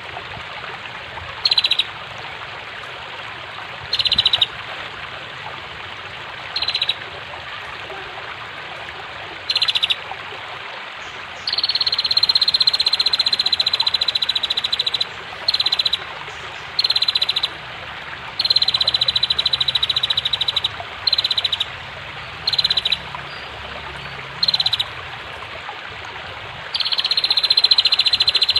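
Female prenjak (prinia) giving rapid, pulsing trills. A few short calls about every two to three seconds give way to longer trills lasting several seconds each, all over a steady rush of flowing water.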